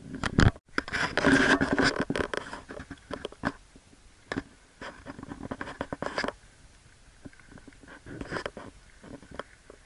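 A loud thump about half a second in, then scraping and rustling handling noise with many small clicks, densest for the next second or so and thinning to scattered clicks after.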